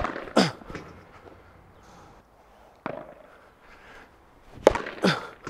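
Padel racket, a Cork Supreme II Hybrid, hitting two overhead smashes: a sharp pop of racket on ball right at the start and another about 4.7 seconds in. Each hit is followed about half a second later by a second, falling-pitched sound, and there is a fainter knock near 3 seconds.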